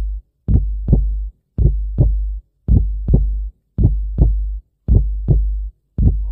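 Heartbeat sound effect: deep double thumps (lub-dub) in a steady rhythm, about one pair a second.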